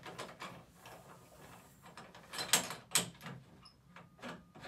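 Metal clicks and knocks of a Buck's traction frame's crossbar rod being set into its clamps on the bed's foot posts and the clamp tightened down, the two loudest knocks about two and a half and three seconds in.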